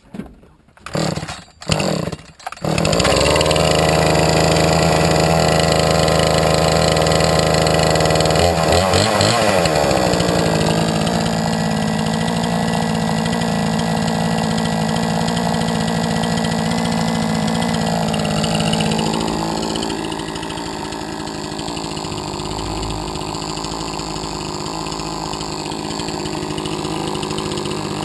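Chainsaw pull-started: a few short pulls on the starter cord, then the two-stroke engine catches about two and a half seconds in and runs steadily. Its pitch shifts around nine seconds in, and it drops a little in loudness around nineteen seconds in.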